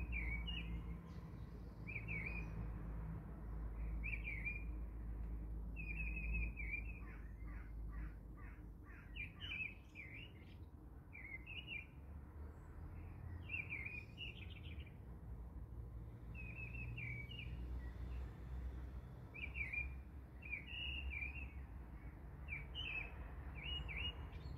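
Small birds chirping in short, quick phrases every second or two, over a low steady hum.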